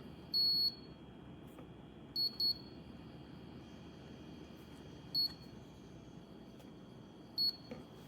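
Electronic beeps from a Dreo humidifier's controls: a longer beep just after the start, two quick beeps a little past two seconds, then single short beeps at about five seconds and near the end, over a faint steady hiss.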